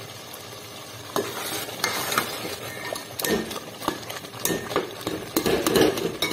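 A steel ladle stirs and scrapes through thick, softened grated-carrot halwa simmering in milk in a steel pot, starting about a second in with irregular scrapes and knocks against the pot. Before it there is a steady low hiss of the mixture bubbling.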